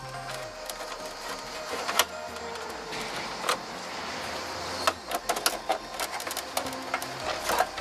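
Scattered clicks and light knocks of a hex-key driver and hard plastic parts being handled as a top-case mounting plate is fitted to a scooter's rear rack.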